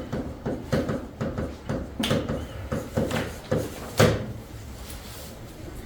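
A quick run of light taps and clicks, about three a second, with a sharper knock about four seconds in, then quieter.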